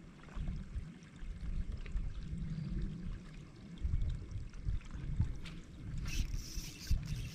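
Low, uneven rumble of water lapping against a bass boat's hull, with wind on the microphone. A brief hiss comes about six seconds in.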